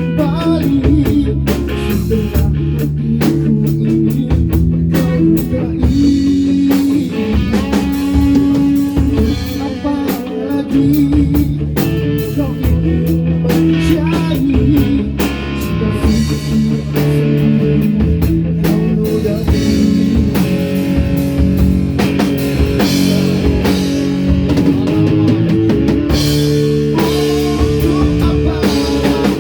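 Live band music: electric guitar over bass and a drum kit, playing a rock or blues song.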